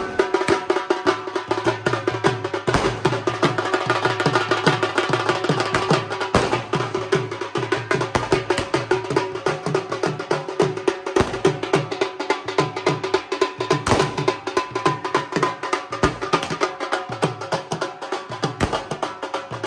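Dhol drum played in a fast, driving rhythm of sharp strokes over a steady ringing tone.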